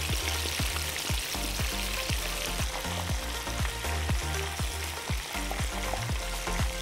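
Free-range chicken pieces, braised in spices and cooled beforehand, deep-frying in hot oil in a pan: a steady sizzling and bubbling.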